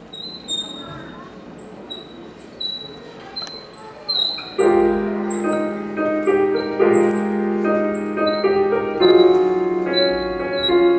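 Piano music: a high tinkling melody of single notes, then fuller sustained piano chords over a held bass note come in about four and a half seconds in and the music gets louder.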